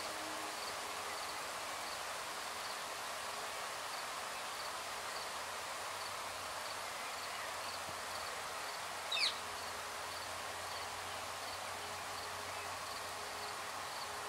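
Insects chirping: a steady hiss with a faint chirp repeating at a regular pace, less than a second apart. About nine seconds in, one short, high bird call falls quickly in pitch.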